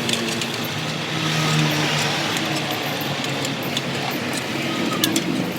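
Motor vehicle noise: a steady engine and road noise with scattered light clicks.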